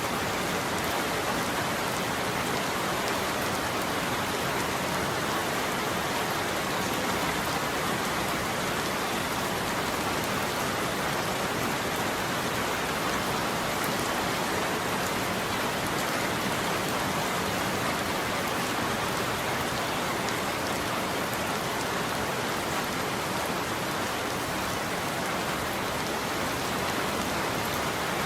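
Steady heavy rain falling and pattering on surfaces, an even hiss with no change in level and no thunder heard.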